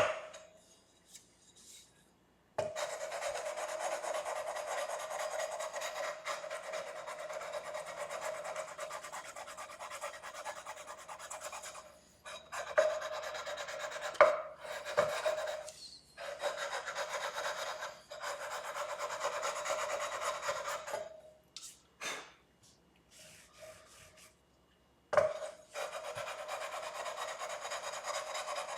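Fret-levelling bar rubbed back and forth along the frets of a 2009 Squier Strat SE neck: steady scraping in long runs, broken by short pauses and a few sharp knocks, the loudest at the very start. The frets are being levelled because they are uneven, ready for re-crowning.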